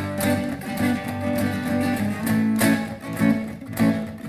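Instrumental break in a country song: strummed acoustic guitar with a steady beat.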